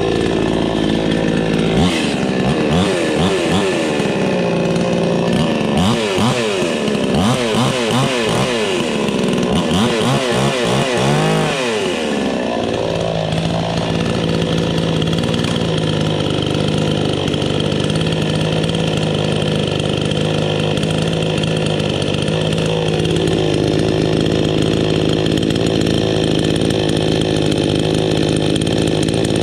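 iBell two-stroke petrol chainsaw being revved up and down over and over for about ten seconds, then settling to a steady idle for the rest of the time.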